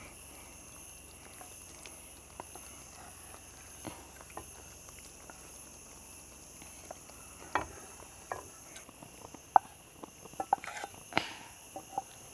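Insects chirring steadily in several high, even tones, with a scattering of soft pops and clicks that come more often in the second half.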